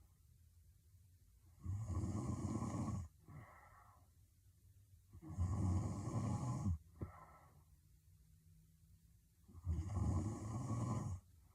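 A woman snoring heavily in her sleep: three long snores about four seconds apart, each followed by a short, fainter breath.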